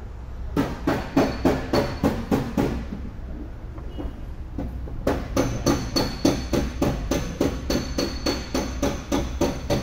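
Steady hammering on metal, about four blows a second, pausing for about two seconds midway. Each blow rings at the same high pitches.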